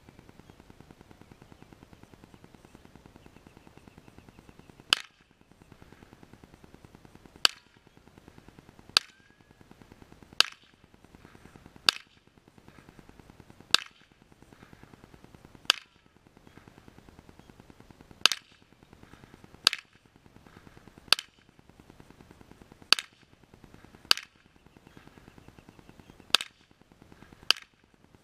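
1953 Remington .22 rifle firing a string of about fourteen sharp shots, the first about five seconds in, then one every one and a half to two seconds.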